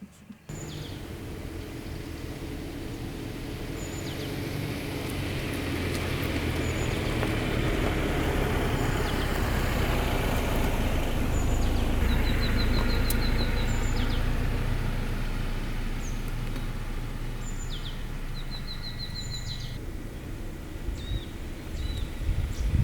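Small birds chirping and giving short trills twice, over the low, steady rumble of a vehicle that swells to its loudest midway and then fades.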